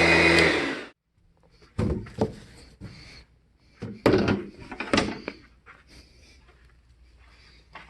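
Vacuum cleaner running loudly, then switched off a little under a second in. A series of irregular knocks and thumps follows, several of them loud, typical of chairs and tables being moved about.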